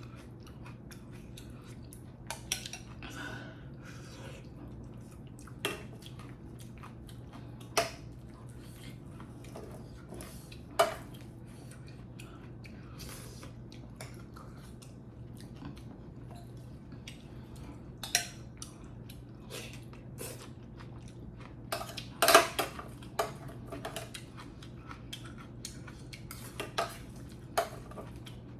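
Eating utensils clinking and knocking against bowls and dishes during a meal, as scattered single clicks every few seconds with a quick cluster about two-thirds of the way through, over a steady low hum.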